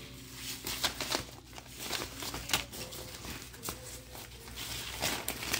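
Paper seed packets and plastic zip-top bags rustling and crinkling as a hand rummages through them in a plastic tote, in quick irregular rustles, over a low steady hum.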